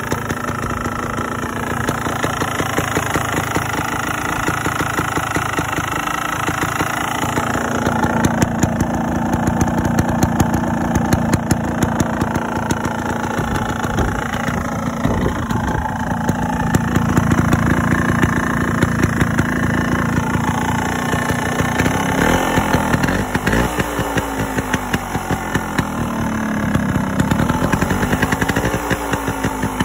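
The Scorpa SY250 trials bike's Yamaha TY-Z 250 two-stroke single-cylinder engine running at idle. Near the end the revs rise and fall several times as the throttle is blipped.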